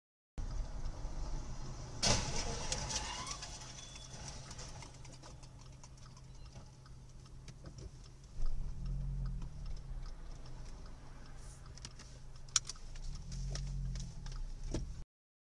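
Low vehicle rumble with a sudden loud bang about two seconds in and a rattle trailing after it, then scattered sharp clicks and clatters.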